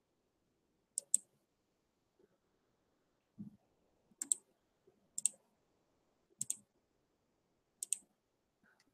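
Computer mouse clicked five times at irregular intervals, each click a quick pair of sharp ticks, with a softer low thump about three and a half seconds in.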